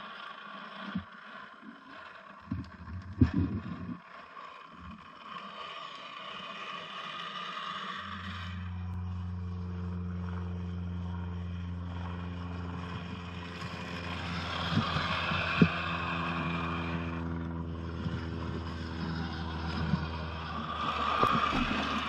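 Scale RC crawler trucks running slowly over dirt, leaves and sticks: a steady electric motor and gear whine with scattered ticks and scrapes from the tyres, getting louder near the end as a truck comes close. The first few seconds are quieter, with a couple of sharp clicks.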